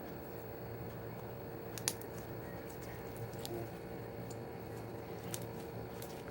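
Steady low hum of room tone with a few faint, scattered clicks and taps, the clearest about two seconds in.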